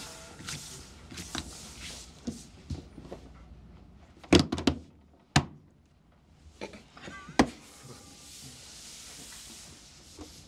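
Playing cards being turned over and set down on a wooden tabletop: a scatter of small taps and knocks, with three sharper knocks in the middle, over quiet room sound.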